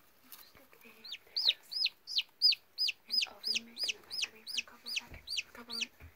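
Newly hatched turkey poult peeping: a run of about fourteen loud, high calls, each rising and falling in pitch, about three a second, starting about a second in.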